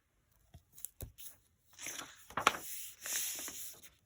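Paper rustling and light knocks as a picture book is handled and its pages are turned: a soft thud about a second in, a sharp tick a little after two seconds, and rustling in between and near the end.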